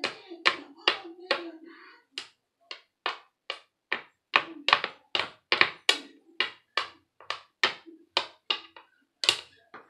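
Sharp hand claps in a steady rhythm, about two to three a second, with a low steady tone under the first second and a half.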